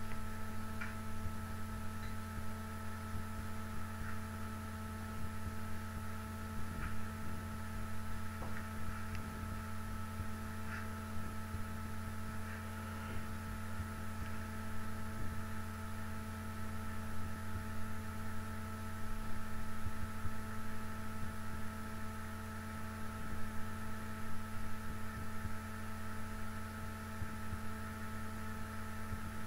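Steady electrical mains hum: a low drone with several fixed overtones that never changes, with a few faint clicks in the first half.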